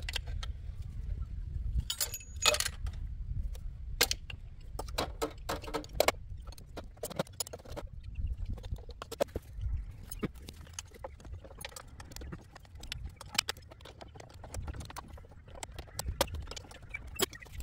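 Irregular clicks and clinks of metal hand tools and plastic parts as spark plug boots are worked loose on a V8 engine, over a low steady rumble.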